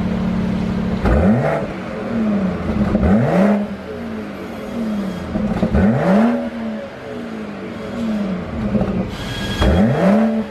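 BMW 540i's 3.0-litre turbocharged straight-six idling, then blipped four times; each rev rises fast and falls back with a burst of exhaust pops and crackles on the overrun, from a pop-and-crackle tune.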